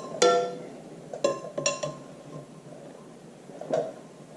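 Steel tools clinking against the steel flywheel and its bolt locking tabs while the tabs are bent over. There is a sharp ringing clink at the start, two more about a second later, and a softer knock near the end.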